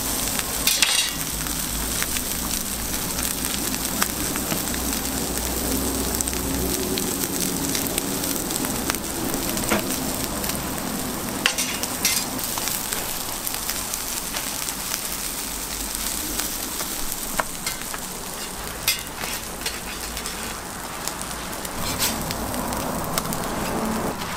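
Egg and shredded-ham patties sizzling steadily on a flat-top steel griddle, with a few sharp clicks and scrapes of a slotted metal spatula.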